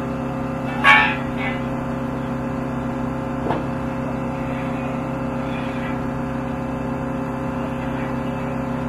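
Steady mechanical drone made of several constant tones, with a short, louder, higher-pitched squeal about a second in and a single click at about three and a half seconds.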